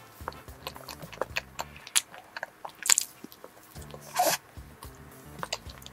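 Close-miked eating: biting into and chewing a crumb-coated, cream-filled layered banana cake, with many small crisp crackles and louder crunchy bites near two, three and four seconds in. Faint background music under it.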